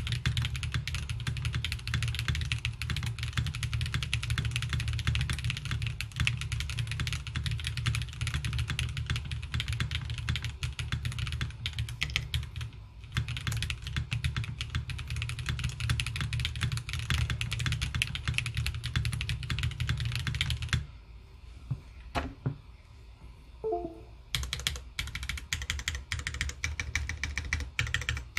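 Fast, continuous typing on a QK80 mechanical keyboard with stock Kailh BCP switches on an FR4 plate and Ranked 9009 keycaps: a muted sound with thumping bottom-outs and plasticky top-outs. The typing stops for a few seconds about three quarters of the way through, then picks up again.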